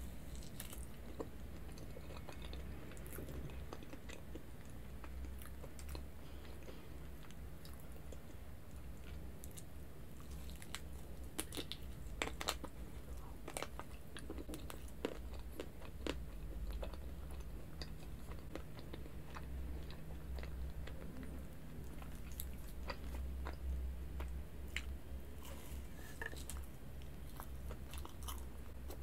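Close-up chewing and biting of a slice of chocolate-topped cream cake, with wet mouth clicks and small crunches scattered throughout, busiest in the middle and near the end. A steady low hum runs underneath.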